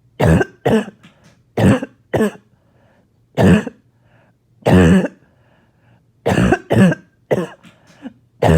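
A person coughing a barking, chesty cough, about ten coughs, mostly in pairs, a second or two apart. It is the cough of a chest congested with phlegm.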